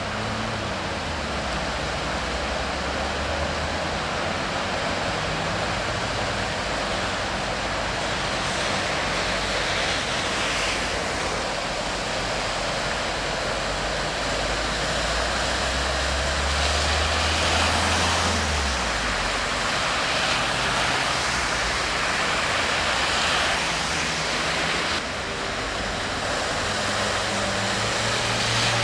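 Cars driving slowly through deep floodwater, their engines running low while the water surges around them, over a steady hiss of heavy rain and rushing water.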